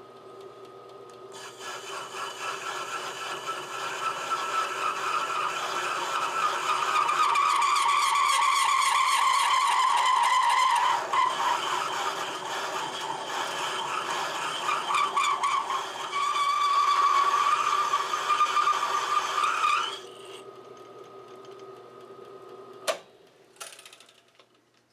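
South Bend lathe running while a cutoff (parting) tool plunges into a stress-proof steel bar turning between centers. The cut builds to a loud, harsh cutting sound with a ringing tone that slowly drops in pitch. It eases off about halfway, picks up again, and stops about twenty seconds in, leaving the lathe running, with a sharp click near the end.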